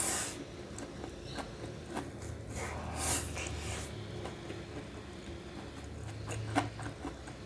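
Chow mein noodles being slurped from a fork and chewed, with small wet mouth clicks; the longest slurp comes about three seconds in.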